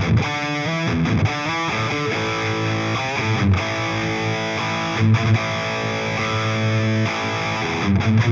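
Electric guitar played through the Anvil amp-simulator plugin: quick picked phrases in the first couple of seconds, then longer held notes and chords, with a few sharp picked accents.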